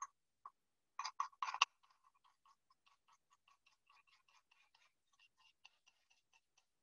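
A small spoon clinking and tapping against a ceramic bowl while stirring thick gochujang paste with honey: a few sharper clinks in the first second and a half, then a quick, faint run of ticks as the stirring goes on.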